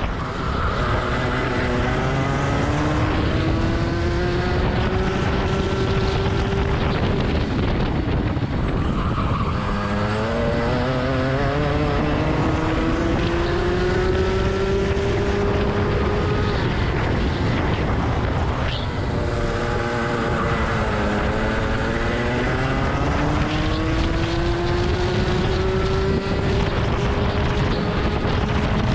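Rotax two-stroke kart engine heard onboard at full throttle. Its pitch climbs steadily for several seconds, then drops sharply as the driver lifts off, about 9 s and 18 s in, and climbs again each time, with wind rush on the microphone underneath.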